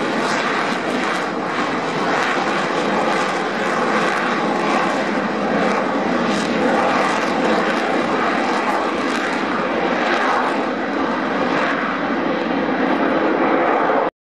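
Two McDonnell Douglas AV-8B Harrier II jets in formation, their Rolls-Royce Pegasus vectored-thrust turbofans giving a loud, steady jet noise as they pass and climb away under power.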